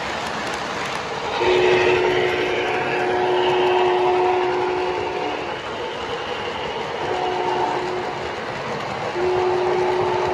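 O-gauge model steam locomotive's onboard sound system blowing a steam whistle: one long blast, a short one, then another long one starting near the end, over the steady rumble of the train rolling on the track.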